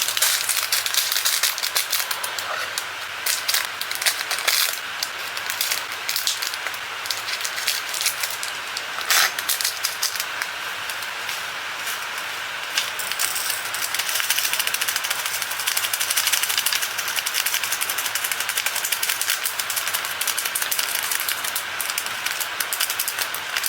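Rain falling steadily, a dense crackling patter with a few sharper clicks here and there.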